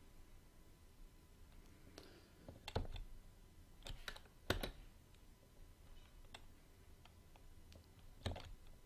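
Key presses on a computer keyboard: a few scattered clicks, some in quick pairs, with long pauses between, as the ESXi console's password is entered and its menus are navigated.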